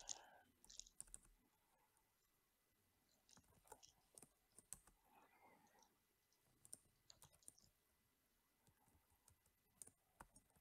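Faint keystrokes on a computer keyboard, typing in short bursts with pauses between.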